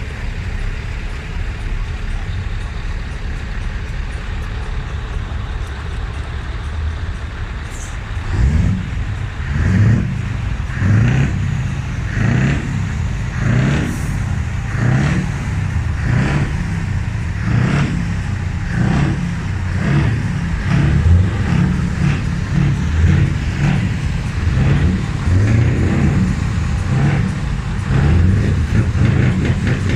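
Heavy truck diesel engine running steadily, then revved again and again from about eight seconds in, with short hisses of air, typical of truck air brakes.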